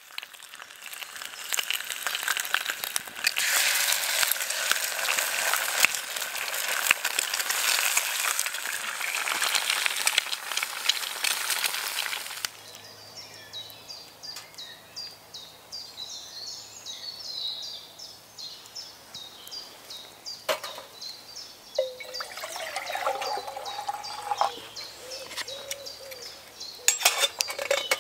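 Bacon sizzling in a frying pan over a small wood-burning camp stove, a loud crackling hiss for about the first twelve seconds that then drops away suddenly to quiet woodland with birds calling. Near the end, a few metal clinks as a steel mug is set on the stove.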